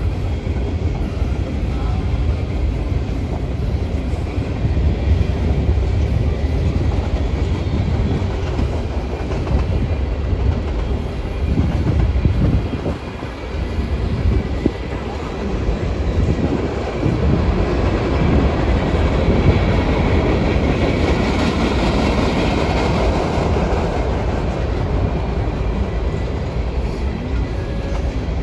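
Norfolk Southern mixed freight train's cars rolling past on the rails: a continuous rumble and clatter of wheels on track. It grows louder and brighter for several seconds about two-thirds of the way through.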